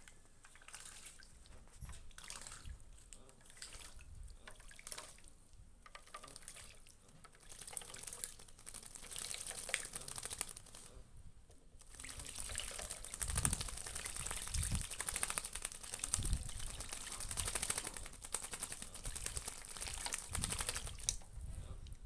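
Common myna bathing in a shallow steel plate of water, splashing with its wings. The splashes come in short bouts at first, then run almost without a break and louder from about halfway through, stopping shortly before the end.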